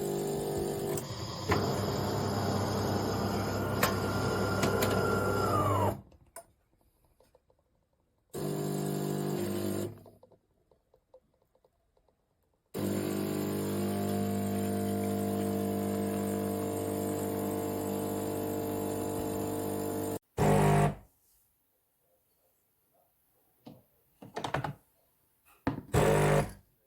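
Bean-to-cup coffee machine running in several separate spells, a steady hum that starts and stops abruptly, with a whine that drops away as the first spell ends about six seconds in. A few short bursts follow near the end.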